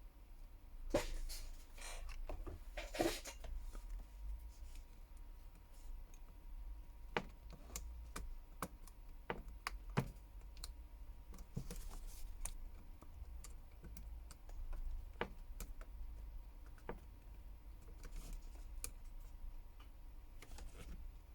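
Irregular small clicks and taps of a smartphone being reassembled by hand, with parts and tools knocking against the work surface. A denser run of handling noise comes in the first few seconds, then single clicks every second or so.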